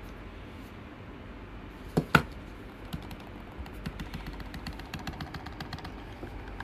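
Two sharp clicks about two seconds in, then the scroll wheel of a Logitech MX Anywhere 3S mouse being rolled, giving a fast run of fine ticks, over a steady low hum.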